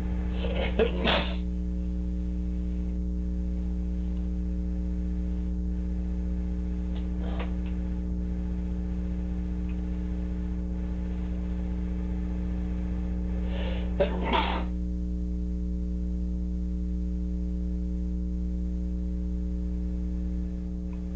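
A person sneezing in sudden bursts: a quick double sneeze about a second in, a fainter one around seven seconds, and another double sneeze about fourteen seconds in, part of a sneezing fit from a cold. A steady electrical hum runs underneath.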